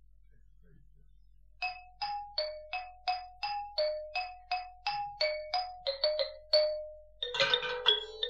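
A simple melody of single struck notes on a bell-like tuned percussion instrument, each note ringing and dying away, about two to three a second, starting about one and a half seconds in; near the end the notes come faster and overlap.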